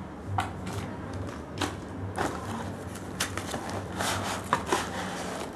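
A cardboard product box and its packaging being handled and opened by hand, with scattered light taps, clicks and scrapes.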